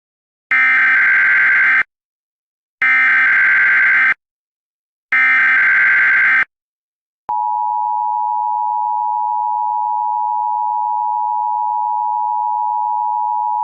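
Emergency Alert System SAME header: three bursts of buzzing digital data tones, each a little over a second long, then from about seven seconds in the steady EAS attention tone. It signals that an emergency alert message is about to be read.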